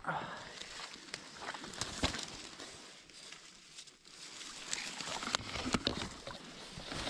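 A person pushing through wet brush at the water's edge: branches rustling and crackling, with scattered snaps and some sloshing of water.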